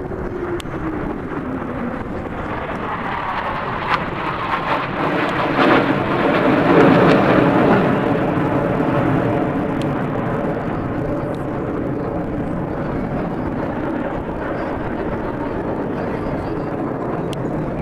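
Aircraft flying past: engine noise with a falling pitch at the start, then swelling to its loudest about seven seconds in as another pass goes by, and easing off.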